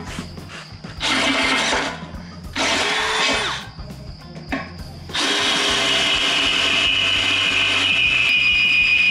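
Cordless drill boring a twist bit into the thick steel lip of an excavator bucket. It runs in two short bursts of about a second each, then for about five seconds without a break, with a high, steady squeal from the bit cutting steel.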